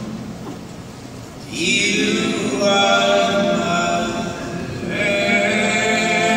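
Several voices singing long held notes without instruments, softer at first, swelling about a second and a half in and again near the end.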